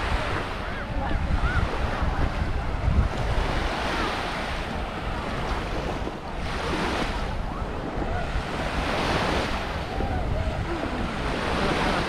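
Small waves breaking and washing up a sandy shore, swelling twice in the second half, with wind rumbling on the microphone.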